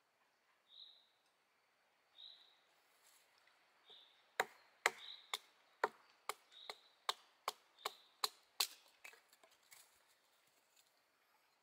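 A small fixed-blade knife is driven down into a short wooden billet standing on a log, splitting it, with about a dozen sharp wooden knocks at two to three a second in the middle of the stretch. A bird gives a short chirp about every second and a half.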